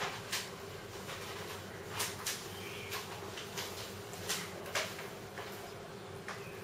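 Lop rabbit chewing leafy greens close to the microphone: irregular crisp crunches, about half a second to a second apart, over a steady faint hum.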